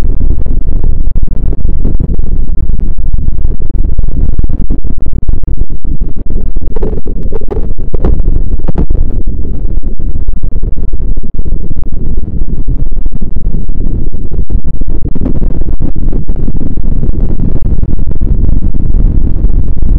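Loud, distorted rumbling noise with constant crackling: a harsh electronic noise soundtrack, with a brighter, harsher stretch about seven to nine seconds in.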